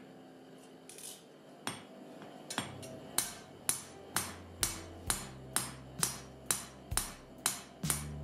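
Hand hammer striking a steel gyuto blade on an anvil: a few scattered blows, then a steady run of sharp metallic strikes at about two a second.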